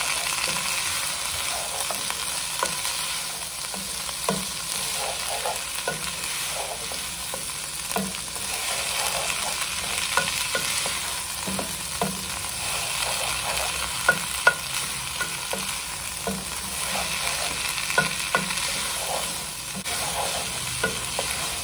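Lentils, onion and cinnamon sticks frying in olive oil in a nonstick pan with a steady sizzle, while a wooden spoon stirs them, scraping and knocking irregularly against the pan, with a few louder knocks.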